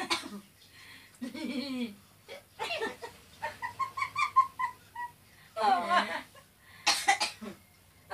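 Two women laughing and giggling in short bursts, with a quick run of staccato ha-ha-ha laughs about halfway through and a squealing laugh a little later.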